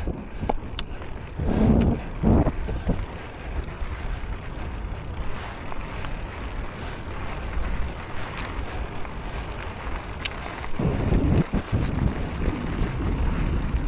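Electric mountain bike riding over loose, stony trail: tyres crunching over rocks and the bike rattling over a steady low rumble, with two rougher, louder stretches about two seconds in and near the end.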